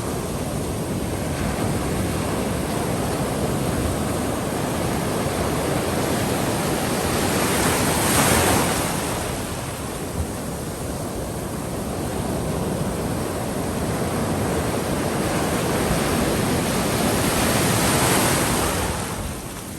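Small ocean waves breaking and washing up the beach in a steady surf hiss, swelling to a louder break about eight seconds in and again near the end.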